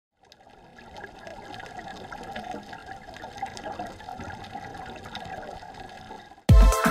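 Underwater ambience: a muffled, even water hiss with scattered faint clicks, fading in over the first second. Loud music with a heavy beat cuts in abruptly near the end.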